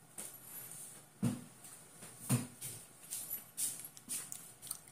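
A person getting up from a cushioned chair and walking off: rustling of clothes and chair, two soft thumps about a second and two seconds in, then lighter taps and clicks.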